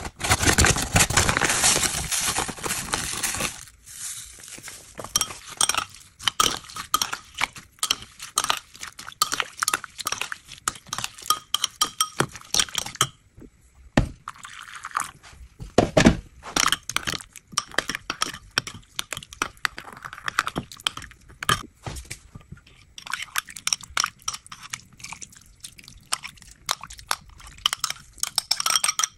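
Metal spoon stirring a marinade of chopped lemongrass in a ceramic bowl, clinking and scraping against the bowl in quick, irregular taps. The first few seconds hold a louder, dense scratchy noise.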